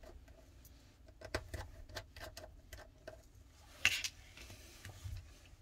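Faint, irregular small clicks and ticks of a precision screwdriver working out the tiny motherboard screws of a smartphone, with one sharper click about four seconds in.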